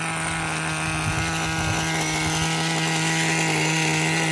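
Small two-stroke glow engine of a nitro RC buggy idling steadily at an even pitch.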